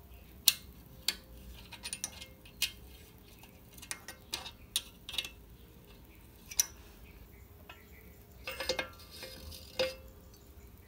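Scattered sharp metallic clicks and clinks of a wrench working the end-cap bolts on a Kawasaki KLX140G's stock muffler. A longer scraping clatter comes near the end as the spark arrestor insert is drawn out of the muffler.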